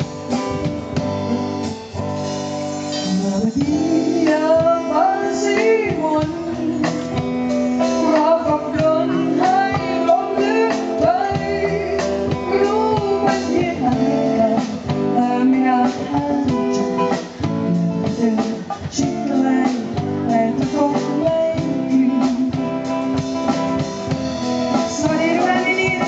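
A singer performing live into a microphone, backed by a live band. The band plays alone at first, and the voice comes in a few seconds in.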